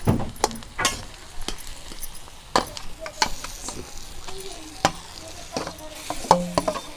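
A metal spatula scraping and knocking against a kadhai, a run of irregular sharp strokes as mashed taro (ghuiya) is stirred into a sizzling oil tempering of cumin, garlic, chilli and onion.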